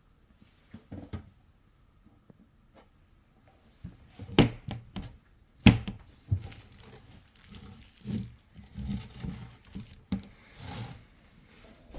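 Scattered knocks and clatters of objects being handled, with two sharp loud knocks about four and a half and six seconds in and softer thuds between.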